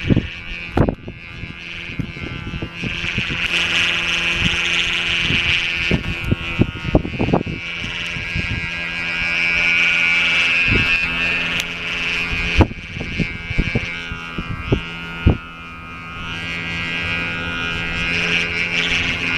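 A kite hummer (unari) on a kama-dako kite buzzing in strong wind, its drone swelling and fading with the gusts. Wind buffets the microphone with low rumbles and knocks.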